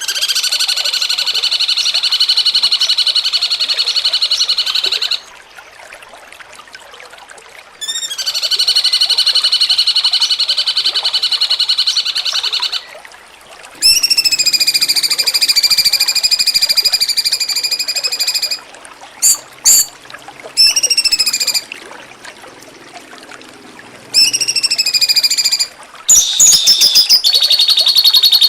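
Cucak cungkok song in the 'jengking munting' style: long, rapid, high rattling trills of about five seconds each, two of them separated by short pauses, followed by shorter broken phrases and another trill starting near the end.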